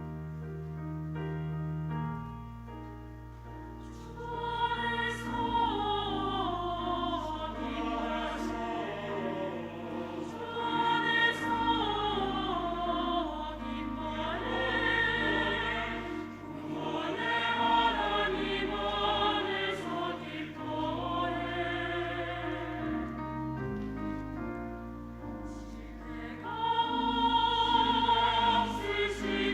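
Church choir singing a sacred anthem with piano accompaniment. The piano plays alone for the first few seconds, and the choir comes in about four seconds in.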